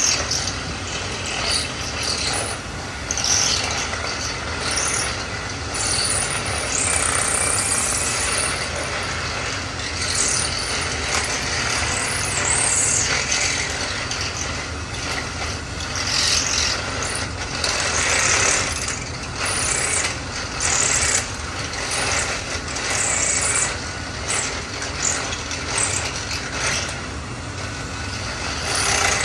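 Power drill boring into the edge of a wooden door to deepen the deadbolt hole, running continuously with an uneven, rasping chatter that surges and eases as the bit cuts.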